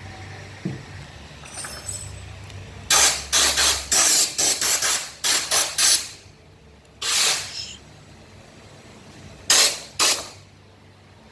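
Repeated short bursts of hissing spray: a quick run of about ten in the middle, then one longer burst and two short ones near the end, over a faint low hum.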